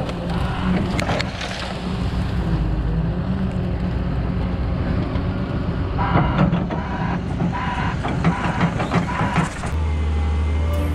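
Heavy diesel machinery running steadily, with a run of metallic clanks and knocks in the second half. About a second before the end it cuts to background music with a deep bass line.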